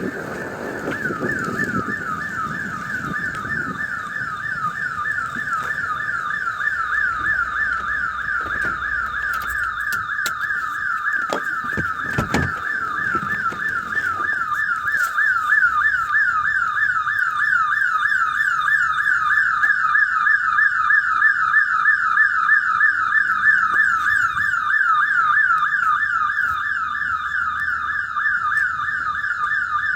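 Store alarm sounding nonstop: a high electronic warble of quick rising sweeps, about three a second.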